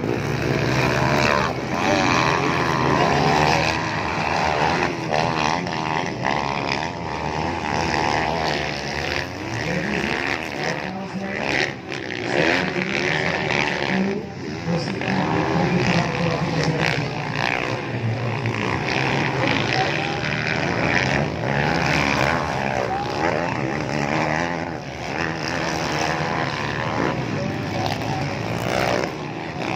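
Several motocross dirt bikes racing round the track, their engines revving and dropping back as they climb and jump. The overlapping pitches keep rising and falling.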